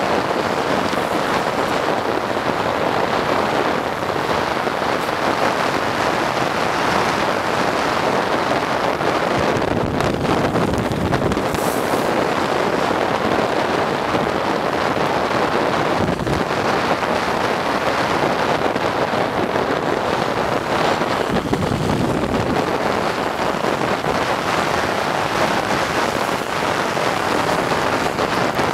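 Steady rush of wind over the microphone with road noise from wheels rolling fast on asphalt, from a chase camera following a downhill longboard run.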